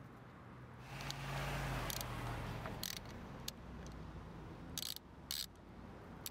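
Hand ratchet tightening the mounting bolts of a new window regulator, its pawl clicking in about five short bursts on the back-swings, over a low steady hum.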